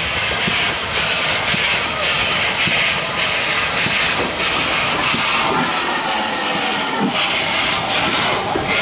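GWR 4575 class 'small prairie' 2-6-2 tank locomotive No. 5542 running slowly past along a station platform. A steady hiss of steam carries soft, regular beats about once a second.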